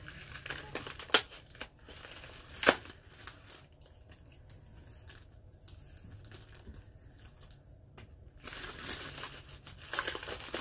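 Crinkling and tearing of the packaging on a pack of vinyl decal stickers as it is handled and pried open, with two sharp snaps about a second and nearly three seconds in. It goes quieter in the middle, and the crinkling picks up again near the end.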